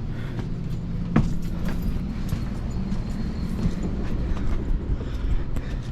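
A steady low mechanical hum, with one sharp knock about a second in and a few lighter knocks scattered after it.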